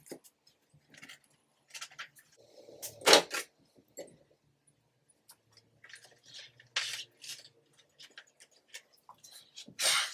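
Intermittent close-up handling noise: scattered small clicks and short rustles, the loudest about three seconds in, again around seven seconds, and just before the end.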